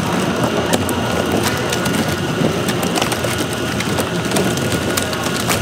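Kimchi factory processing machinery running: a dense, continuous crackling clatter full of small clicks, over a steady high machine whine.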